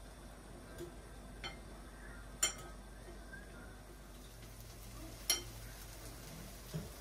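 A fork clinking against a glass bowl while bread slices are dipped and turned in egg mixture for French toast: a few sharp, separate clinks, two of them louder.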